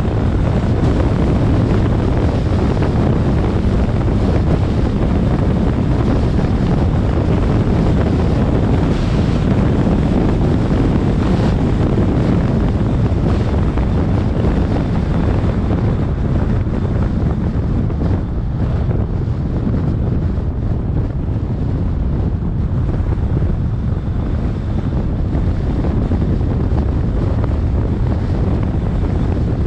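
Wind buffeting the microphone of a camera on a moving car, over the road noise of the drive: a steady, low rushing noise.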